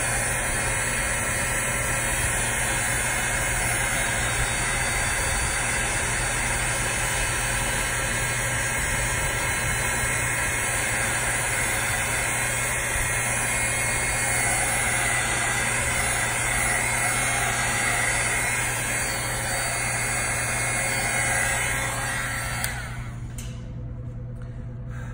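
Handheld embossing heat tool running steadily, its fan blowing hot air with a constant hum as it melts black embossing powder on a stamped paper tag. It is switched off near the end.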